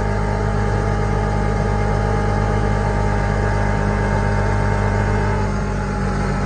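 Hisun 550 UTV engine running steadily under way at road speed, holding an even note with no sputtering or cutting out now that it has a new fuel injector and fuel filter. The note eases slightly about five seconds in.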